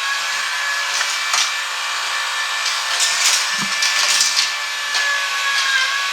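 Motorized Hot Wheels track set running: the steady whine of its electric motor, with die-cast toy cars clattering against the plastic track several times.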